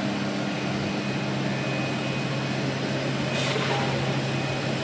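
Rubber extrusion and vulcanization production line running: a steady drone of motors and blowers with a constant low hum, and a brief hiss about three and a half seconds in.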